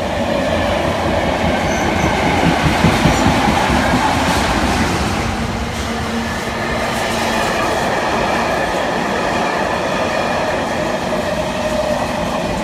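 Loaded car-carrier freight wagons rolling past: steady wheel-on-rail noise with thin ringing tones from the wheels over it. The wheels clatter over the rail joints a few seconds in, where it is loudest, and then the noise eases a little as the last wagons go by.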